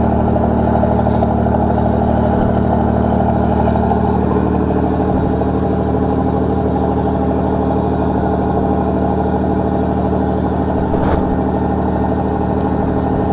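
A commercial fishing boat's diesel engine running steadily under way, with water rushing along the hull. The engine note shifts slightly about four and a half seconds in, and there is a single sharp knock near the end.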